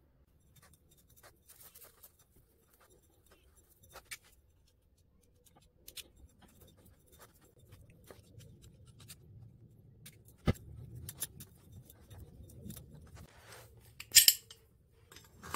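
Utility knife scraping and cutting old hemp thread packing off a threaded pipe fitting: faint scratching and small ticks, with one sharp click about ten seconds in. Near the end comes a brief louder metal clink as a pipe wrench is handled.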